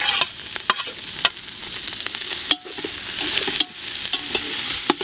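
Sliced onions, garlic and ginger sizzling as they fry in oil in an aluminium pot. A metal spatula stirs and scrapes against the pot with sharp clicks and clatter.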